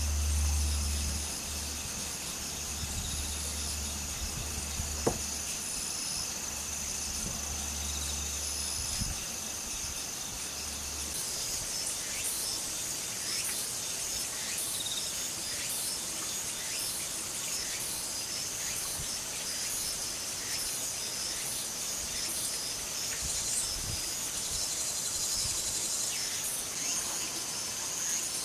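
Insects chirring steadily in high thin tones. A low steady hum runs underneath and stops about eleven seconds in, and after that short high chirps come often.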